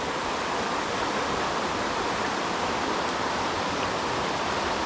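Creek water rushing steadily through a run, an even hiss with no breaks.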